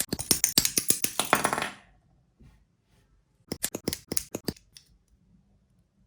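Rapid clicking and snapping of small plastic model-kit parts being handled and pressed together, in two quick flurries of clicks about two seconds apart.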